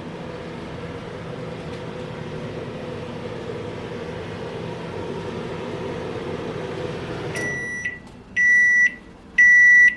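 Microwave oven running with a steady hum, then shutting off about seven and a half seconds in and beeping three times, about once a second, to signal the cycle is finished.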